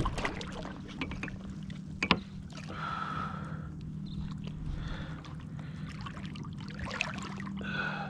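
Water splashing and trickling beside a kayak while a landed redfish is handled over the side for release, with a few sharp knocks, the loudest about two seconds in.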